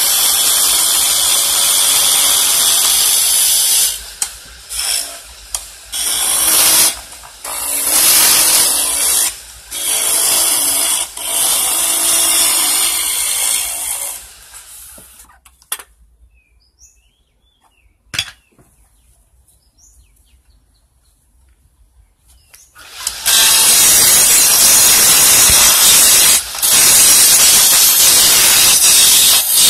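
Chisel cutting a wooden mallet handle spinning on a wood lathe: a loud rasping hiss of wood being shaved, in repeated passes with short breaks. The cutting stops for several seconds about halfway through, with one sharp click in the pause, then resumes as a long steady cut.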